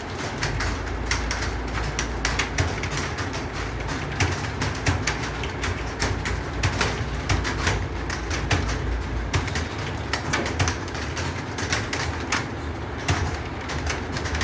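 Computer keyboard typing: a fast, uneven stream of keystroke clicks, several a second, over a low steady hum.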